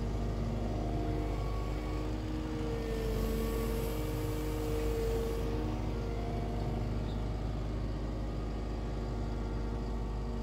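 Atlas 140 W wheel excavator's diesel engine running steadily while the boom and bucket are worked hydraulically. A whining tone grows louder and rises slightly in pitch between about three and five seconds in.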